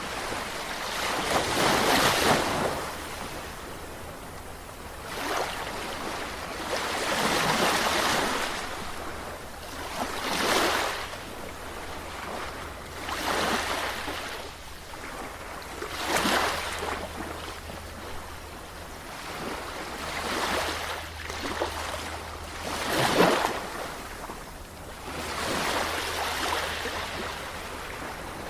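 Sea waves breaking and washing on the shore, surging and receding every two to three seconds, with a low rumble of wind on the microphone.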